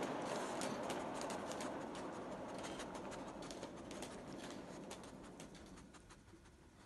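G-scale model train running along its track: a steady whir with many sharp clicks from the wheels on the rails, fading steadily and dying out near the end.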